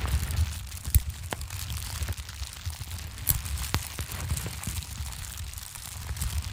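Wood fire crackling: scattered sharp pops and snaps of burning wood over a low rumble of flames.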